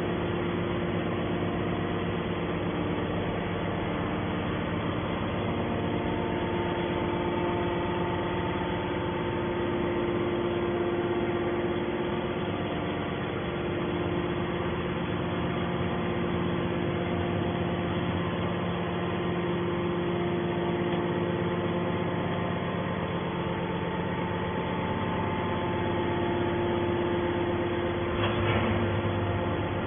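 Hydraulic scrap metal baler running, its electric motor and hydraulic pump giving a steady, even hum.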